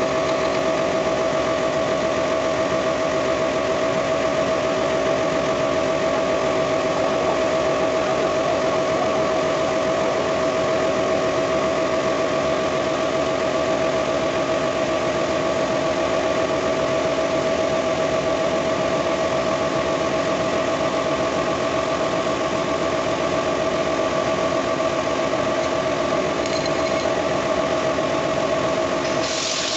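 A machine running steadily with a constant pitched hum and a dense mechanical rattle. A hiss comes in at the very end.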